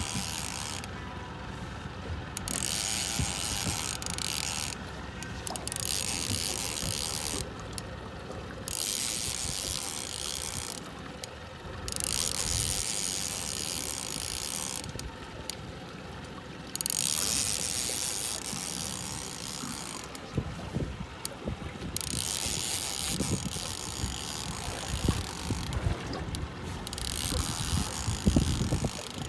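A fishing reel cranked in repeated bursts of a second or two with short pauses between, as a hooked paddlefish is pumped in on a heavy rod. Low knocks and rumbles build near the end.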